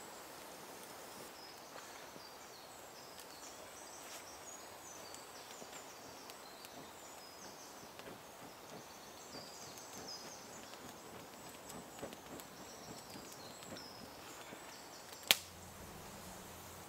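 Quiet evening woodland ambience with birds singing faintly in short high phrases throughout. A single sharp click about fifteen seconds in stands out as the loudest sound.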